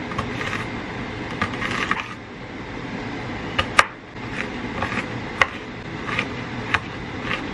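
Kitchen knife chopping an onion on a wooden cutting board: a dozen or so irregular knocks of the blade on the board, the loudest a little before the middle.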